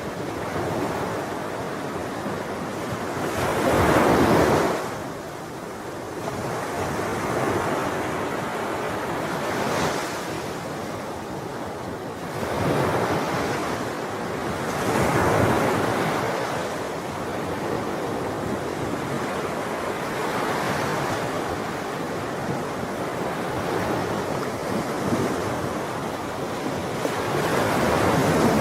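Sea waves breaking and washing up on a shore: a steady rushing surf that swells and falls back every few seconds, loudest about four seconds in, around fifteen seconds in and near the end.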